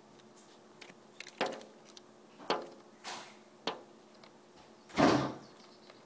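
A small bird pecking at window glass: about five sharp taps at uneven intervals, then a louder, longer knock about five seconds in.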